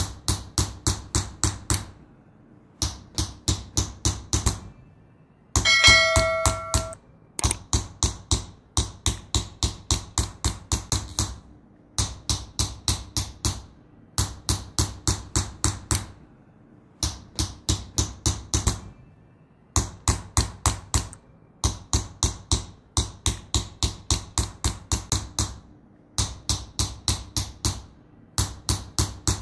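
Small hammer tapping a pointed engraving tool into a copper vase in Persian qalamzani metal engraving: quick runs of sharp metallic taps, a few a second, broken by short pauses. About six seconds in comes one brief ringing sound with clear metallic tones, the loudest moment.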